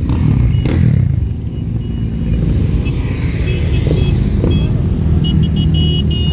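A column of motorcycles riding slowly past one after another, their engines running steadily. Short, high-pitched toots come near the end.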